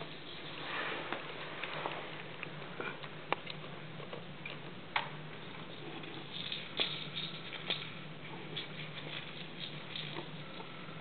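Somali kittens at play: irregular light taps, patters and small clicks of paws and a rattle ball on the floor, with a few sharper clicks, over a steady low hum.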